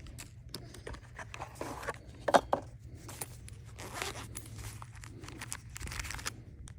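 A new knife's packaging being opened and handled by hand: scattered tearing, rustling and crinkling with small clicks.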